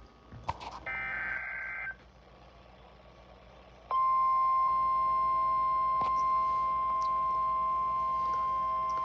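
Weather radio alert signal: a one-second burst of warbling SAME digital data tones, then about four seconds in the steady 1050 Hz warning alarm tone of NOAA Weather Radio comes on and holds. It signals that a warning is about to be broadcast.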